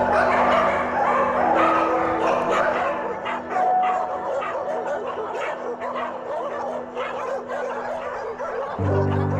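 Many dogs barking and yipping together in a dense, overlapping chorus, over background music with sustained low notes that grow louder again near the end.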